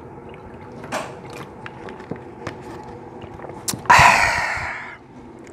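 Drinking water from a plastic bottle, the bottle creaking and clicking in the hand with small gulps, then about four seconds in a loud, breathy 'ahh' exhale after drinking that fades over about a second.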